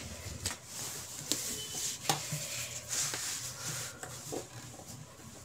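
Handling noise from a phone camera being moved and refocused over a paper drawing: scattered light clicks about once a second over soft rubbing.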